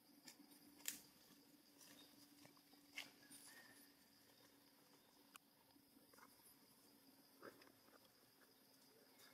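Near silence: faint forest ambience with a steady high hum and a few sharp clicks or taps, the loudest about a second in and at three seconds. No crying from the infant macaque.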